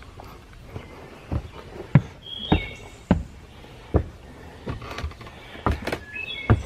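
A hiker's steady walking footsteps on a forest trail, a short thud with each step, with brief bird chirps twice.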